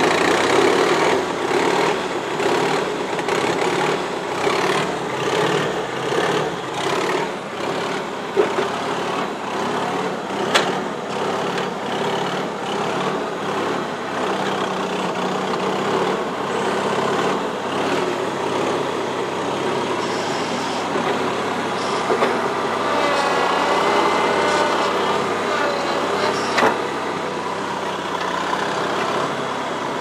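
New Holland L425 skid steer's four-cylinder Wisconsin engine running steadily just after a choked cold start, with a couple of sharp clicks.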